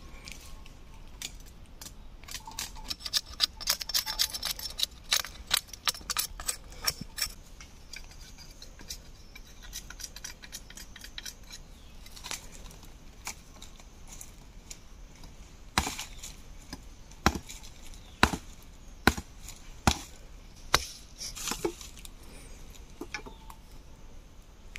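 Machete chopping at a thin wooden pole: a rapid run of light strokes for about five seconds, then about nine sharp single chops roughly a second apart.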